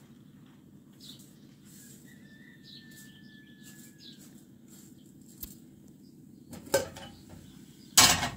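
Steel pots and pot lids clattering on a gas stove as they are handled: a short clatter, then one loud metal clang near the end, over a steady low hum.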